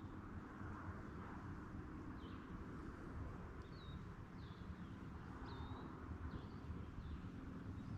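A bird calling a string of about six short, high chirps, each dropping in pitch, over a faint steady low rumble of outdoor ambience.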